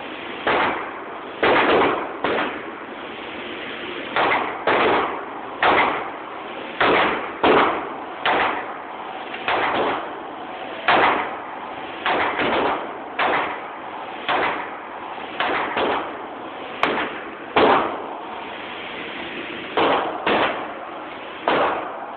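Gunshots fired one at a time, about twenty of them at uneven intervals of roughly a second, each a sharp crack with a short tail.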